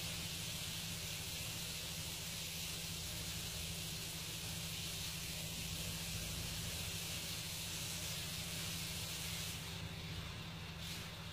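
Steady commercial-kitchen background noise: an even hiss over a low, steady hum, with no distinct events.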